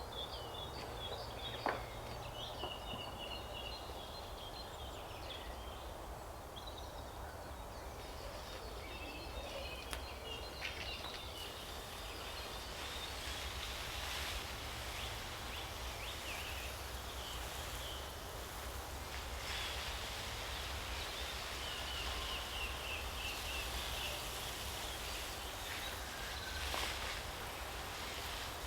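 Songbirds chirping, with short calls throughout and a quick trill about two seconds in and again near the end, over a steady low outdoor rumble.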